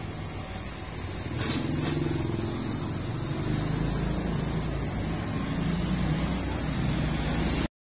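A motor vehicle's engine running close by, its low rumble growing louder about a second and a half in, then cutting off suddenly near the end.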